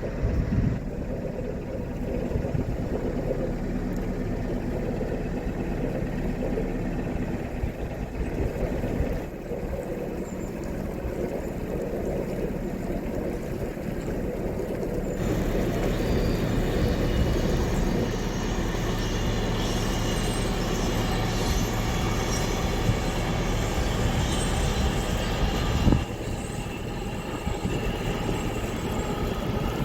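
Narrowboat engine running steadily under way, a low even drone. The sound shifts abruptly a few times, about nine, fifteen and twenty-six seconds in.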